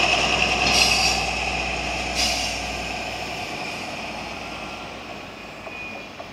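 Dr16 diesel locomotive running as it pulls away, its engine noise fading steadily as it recedes. Two short hisses come about one and two seconds in.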